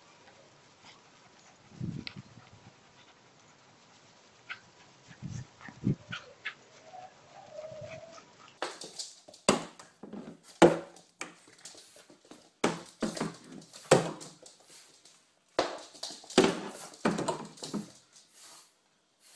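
A dog barking repeatedly and in bursts at a broom, a quick run of loud, short barks through the second half. Before that come only faint sounds and a few soft low thumps.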